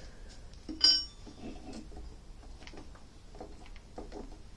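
A sharp metallic clink with a brief ring about a second in, followed by scattered light clicks and knocks of metal parts and tools being handled at a metal lathe.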